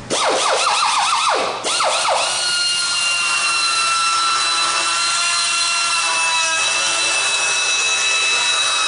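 Die grinder with a quick-release grinding stone switched on. For the first second and a half its high whine wavers rapidly up and down in pitch, then it cuts out briefly. It restarts and runs at a steady high-pitched whine.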